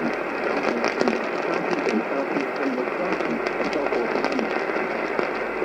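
AM radio reception with heavy static and hiss, crackling throughout, and a broadcast voice faintly heard under the noise.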